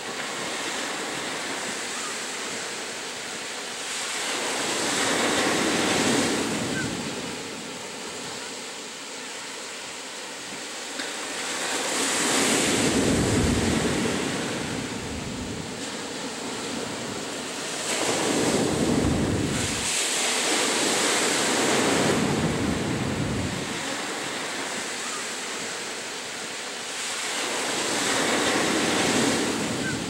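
Ocean surf breaking and washing up a sandy beach, the rush of water swelling and fading several times.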